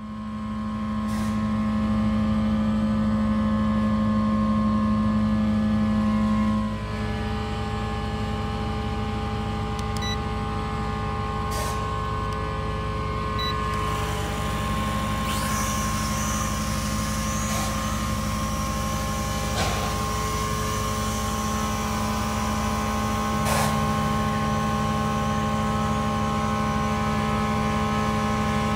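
A steady mechanical hum made of several held tones. Its pitch pattern shifts slightly about a quarter of the way in, and a few brief clicks break through now and then.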